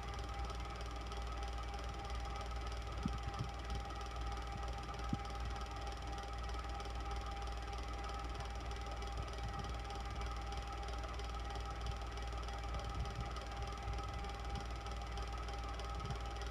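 Electric fan running steadily: an even whirring hum with a low rumble and a light motor whine, with a few faint ticks.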